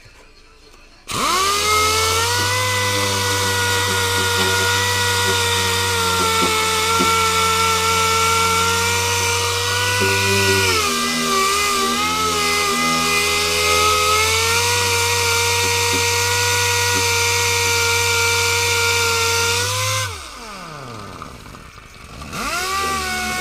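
Angle grinder switched on about a second in and running at a steady whine, its pitch sagging for a couple of seconds in the middle under load, then switched off and spinning down about twenty seconds in, and started again near the end.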